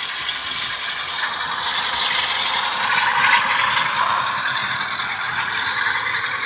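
Model Class 44 diesel locomotive's factory DCC sound decoder playing its diesel engine sound through a twin mini speaker under the roof fan, mixed with the clatter of the model running on its track. It grows louder as the locomotive passes, loudest about three seconds in.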